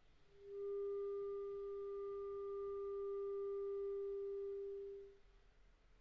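Clarinet holding one long, soft, pure-toned note, which comes in just after the start and stops about five seconds in.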